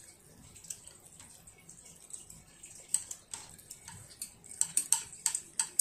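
A child eating with chopsticks: small sharp clicks and smacks, scattered at first and then coming thick and fast in the last second and a half.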